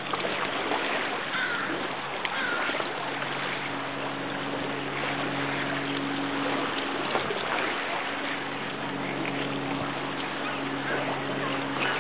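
Shoreline ambience: a steady wash of wind and water noise with a low, steady engine hum underneath, and a couple of faint short calls in the first few seconds.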